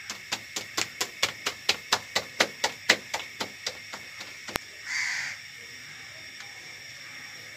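Wet roti dough slapped flat between the palms by hand, a quick even patting of about four slaps a second that stops after about four and a half seconds. About five seconds in comes a brief hiss as the roti goes onto the hot iron tawa.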